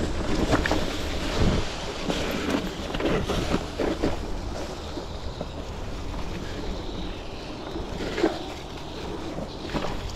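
Riding an electric mountain bike over a rough dirt trail: wind rushing on the microphone and tyres rolling, with frequent clunks and rattles as the bike goes over bumps.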